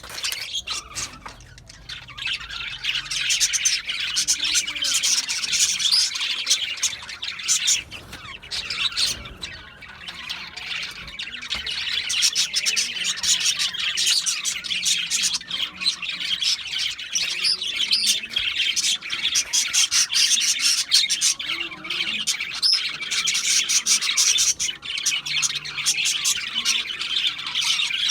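Budgerigars chattering, with continuous warbling chirps and squawks that overlap, easing off a little twice.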